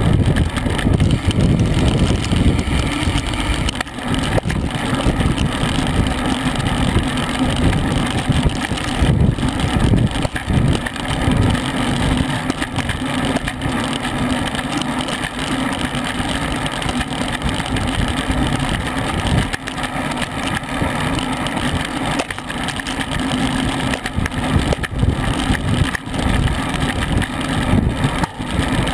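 Wind rushing and buffeting over the microphone of a camera mounted on a road bicycle, mixed with tyre and road noise, while riding in a group at about 20 mph. It is a steady rush with an unsteady low rumble.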